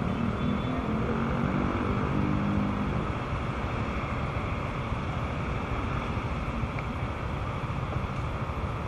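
Riding noise on a single-cylinder Honda Vario 125 scooter in the rain: a steady hiss of wet road, rain and wind, with an engine note rising in pitch over the first three seconds.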